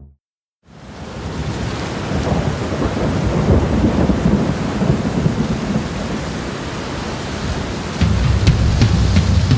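Torrent in flood: the steady rush of fast-flowing floodwater, coming in after a moment's silence and building over the first couple of seconds. Drum-kit music starts about eight seconds in.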